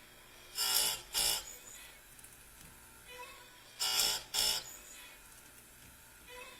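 Oregon bench chainsaw-chain grinder sharpening a saw chain: the spinning wheel is dipped onto a cutter tooth in two short, loud grinding passes, then the chain is indexed to the next tooth and the pair repeats about three seconds later. The grinder motor runs quietly between passes.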